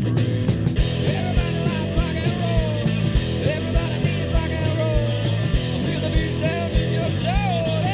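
Rock music with a steady drum beat, bass and guitar, and a lead melody that slides between notes.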